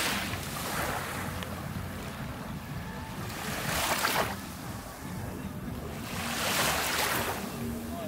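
Small sea waves washing up on a sandy beach, a surge of surf every two to four seconds, three in all, over a steady low wind rumble.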